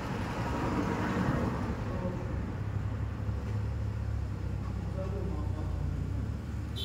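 Steady low rumble of vehicle noise, swelling slightly about a second in.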